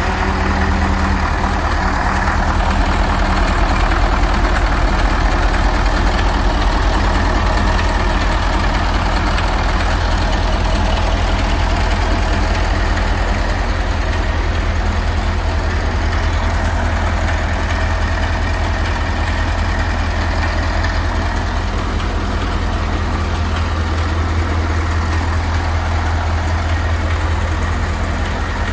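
Diesel engine of a rebuilt KAMAZ 65115 truck idling steadily with a deep, even rumble, just after a cold start.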